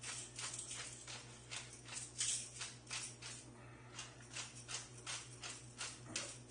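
Hand-held pepper grinder twisted over a pan, grinding peppercorns in quick rasping strokes, about three to four a second, with a short pause partway through.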